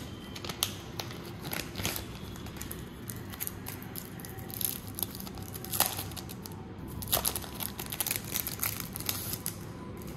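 Crinkling and tearing of a trading-card pack's wrapper being torn open and handled, coming in three spells of crackly rustling.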